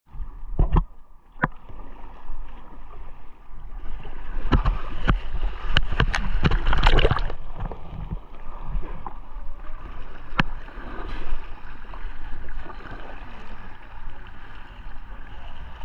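Kayak paddle strokes in a plastic whitewater kayak: sharp splashes and knocks of the blade in the water and against the hull, a dense run of them about four to seven seconds in, over a steady low rush of river water.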